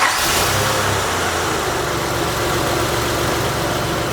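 Freshly rebuilt 3.5-litre V6 of a 2007 Honda Pilot running just after its first start, the revs easing down in the first second and then holding a steady idle that sounds healthy: a good sounding engine.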